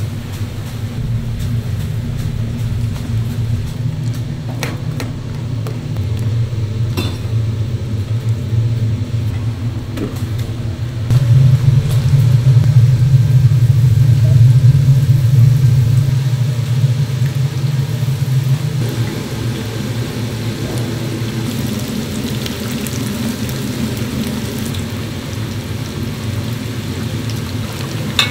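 Kitchen equipment running with a steady low rumble, louder for a few seconds in the middle, with a few light clinks of utensils.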